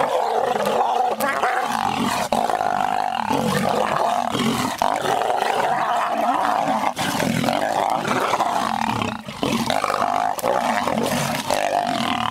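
Lions snarling and growling at each other as they fight over a kill, loud and nearly unbroken, starting suddenly as one lunges at the other.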